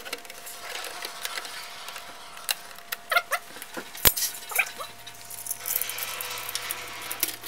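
Stainless steel cover and screen-frame rims of a rotary vibrating sieve being handled and seated against each other: light metal clinks and taps, one sharp knock about four seconds in, and a few short squeaks.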